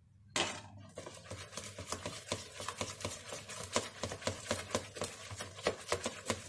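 Hand whisk beating a thin egg, sugar and oil batter in a bowl: quick, even strokes at several a second, each a sharp tap of the whisk against the bowl.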